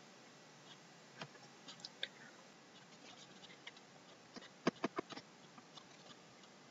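Faint clicking at a computer over quiet room tone: a few scattered single clicks, then a quick run of about five sharp clicks just under five seconds in.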